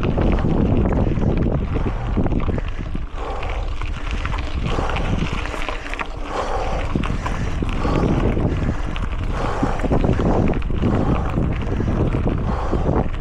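Wind buffeting the microphone of an Insta360 GO 3S action camera on a moving mountain bike, a loud steady rumble. Many small clicks and knocks from the bike and tyres over rough ground run through it.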